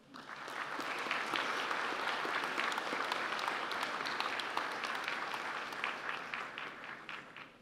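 Audience applauding: many hands clapping together, building up within about a second and fading out near the end.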